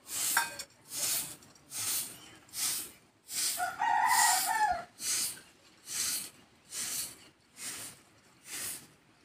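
A rooster crowing once, starting about three and a half seconds in and lasting just over a second, over a steady rhythm of scraping strokes, about one a second, from a stone roller grinding paste on a flat stone slab.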